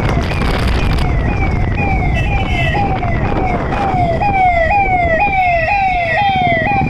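Electronic police siren sounding in repeated falling sweeps, each dropping in pitch and jumping back up, about two a second, getting louder about four seconds in. Motorcycle engines and road noise run underneath.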